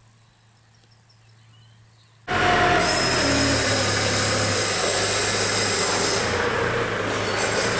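Low faint hum at first, then about two seconds in a loud, steady clattering din of oyster-processing machinery and a forklift working inside a metal shed starts suddenly.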